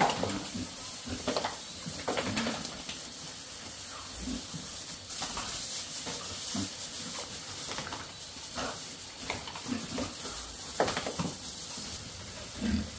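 Hose spray hissing steadily as water rains onto pigs and a wet concrete floor. Pigs grunt and squeal now and then over it, loudest near the start and about two seconds before the end.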